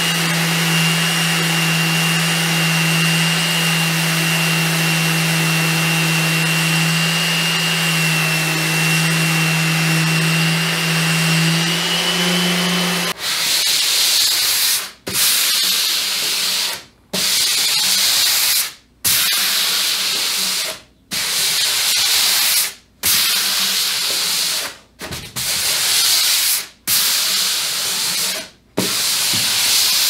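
Random orbit sander with a 150-grit disc running steadily on bare pine, a motor hum with a high whine over the hiss, cut off suddenly about 13 seconds in. It gives way to hand sanding with a sanding block: long rasping strokes across the wood, about one every two seconds with short pauses between.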